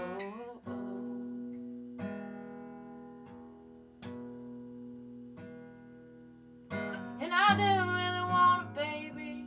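Steel-string acoustic guitar: chords struck one at a time, every second or so, and left to ring out and fade. About seven seconds in the strumming grows louder and a woman's voice comes in singing a long, sliding note.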